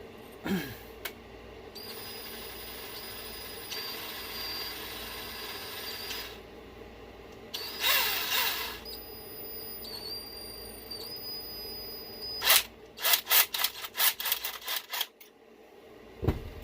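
Electric screwdriver or drill motor whining in runs as it drives the Loctited ring gear screws, with a louder burst in between and a quick series of sharp clicks near the end.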